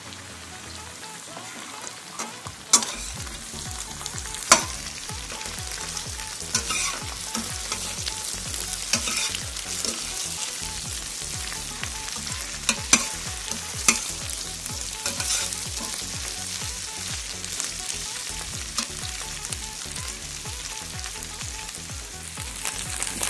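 Cut okra frying in hot oil in a steel kadhai, with a steady sizzle. A spoon scrapes and knocks sharply against the pan now and then as the okra is stirred.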